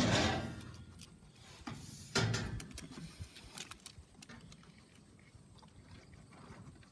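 Faint rustling and scattered small clicks from Great Pyrenees puppies moving and brushing their fur against the phone, with one louder rustling knock about two seconds in.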